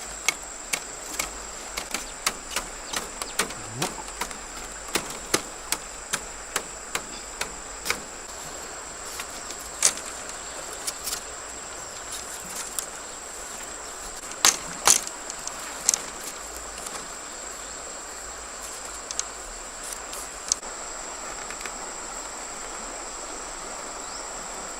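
Insects droning steadily at a high pitch, with a run of sharp knocks over them: about two a second for the first eight seconds, then scattered, with a few louder ones in the middle.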